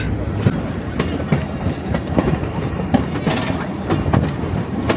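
Passenger train rolling along the track, heard from aboard: a steady rumble with irregular clicks and knocks of the wheels over the rails.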